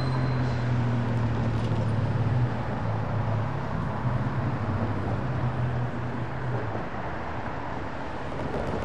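A vehicle engine running with a steady low hum over general traffic noise. The hum fades out about seven seconds in.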